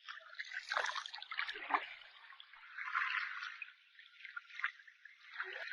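Shallow seawater splashing and trickling in irregular bursts as a fast fish is chased through it.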